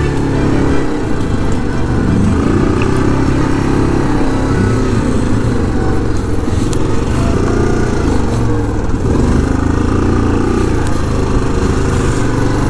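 Yamaha Grizzly 700 SE ATV's single-cylinder engine running under varying throttle as it is ridden, its pitch rising and falling.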